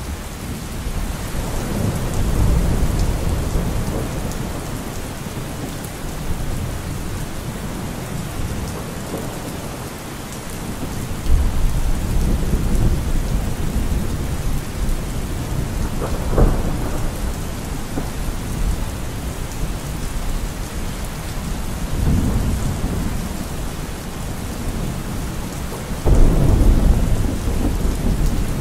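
Steady rain with rolling thunder. Low rumbles swell a couple of seconds in, again about eleven seconds in, and near the end, with a sharper crack around the middle. This is a rain-and-thunder masking track of the kind subliminal videos lay over their hidden affirmations.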